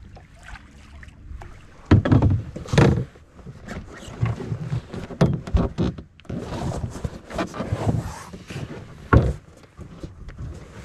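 Irregular knocks, thumps and rustling of a canoe in use: the paddler shifting about and the aluminium-shafted paddle and gear bumping against the hull, loudest about two seconds in.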